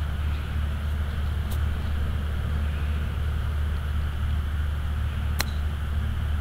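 A single sharp click about five seconds in as a 58-degree wedge strikes a golf ball on a short chip shot, over a steady low rumble and hum. There is a faint tick earlier.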